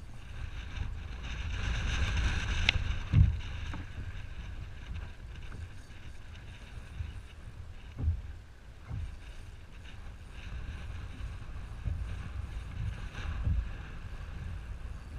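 Strong wind buffeting the microphone, with water slapping against the kayak's hull in several low thumps. A spinning reel being cranked whirs for a couple of seconds near the start, with one sharp click.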